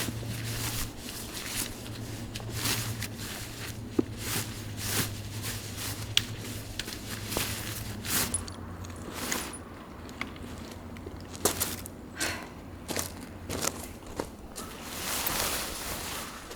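Footsteps and rustling, scraping handling sounds with irregular clicks and knocks, as when camping gear is moved about during tent pitching. A faint low steady hum lies under the first half and fades out about halfway through.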